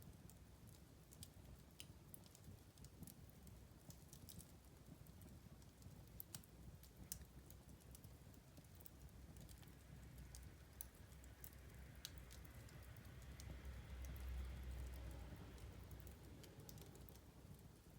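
Wood fire in a fireplace crackling quietly, with irregular sharp pops and snaps over a low rumble. A soft hiss and low rush swell up about halfway through, loudest a couple of seconds before the end, then die back.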